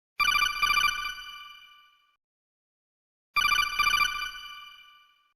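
Telephone bell ringing twice. Each ring is a fast metallic trill of about a second that then fades away.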